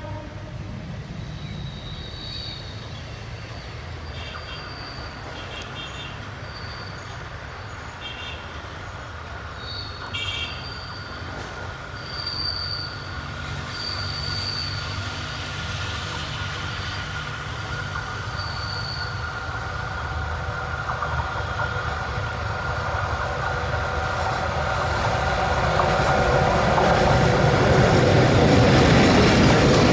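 ALCO WDM-3A diesel locomotive running as it hauls a passenger train closer, its engine drone growing steadily louder, with brief high wheel squeals coming and going as the train takes the curve. Near the end the locomotive passes close and the sound is at its loudest.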